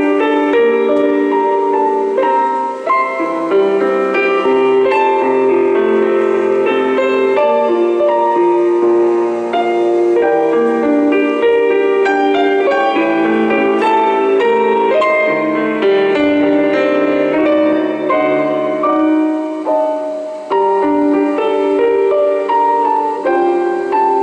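Background piano music: a steady run of sustained keyboard notes.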